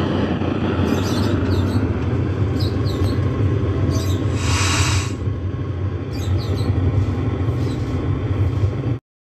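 Universal home theater subwoofer with a 6-inch speaker giving out a loud, constant rushing hiss over a low hum, with no programme playing, then cutting off suddenly near the end as it is switched off. The noise is the sign of failed amplifier ICs (TDA2030 pair) driving the subwoofer, which the repairer is sure are bad.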